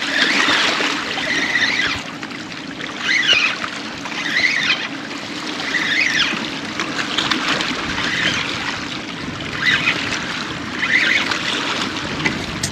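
Choppy water washing and splashing against shoreline rocks, in swells about every second and a half, over steady wind noise.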